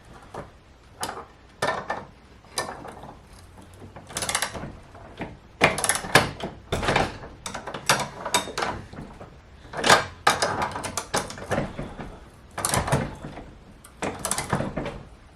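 A bolt being tightened with a hand wrench or socket ratchet on the garage door opener's hardware: irregular bursts of metal clicks and clanks.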